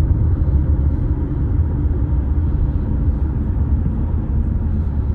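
Steady low rumble of a moving vehicle, heard from inside, with no sudden events.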